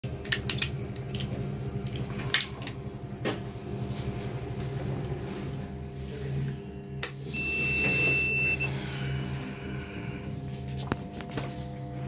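Sharp clicks of a fiber cleaver being worked and fiber being handled, over a steady low electrical hum. About halfway through, the fusion splicer gives one high electronic beep lasting just over a second.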